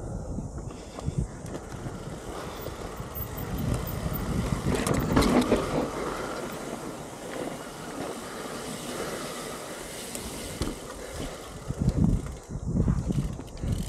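Mountain bike rolling down a dirt trail: tyre noise over dirt and rocks, louder about five seconds in, with a few sharp knocks from the bike near the end.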